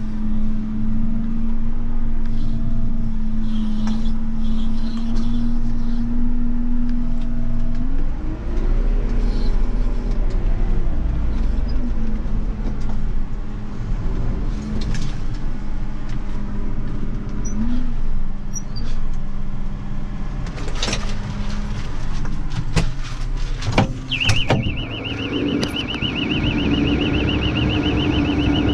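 Tractor engine running, heard from inside the cab; its pitch rises and falls once about a third of the way in. Near the end there are a few sharp clicks, then the engine note steps up and a high warbling beep starts.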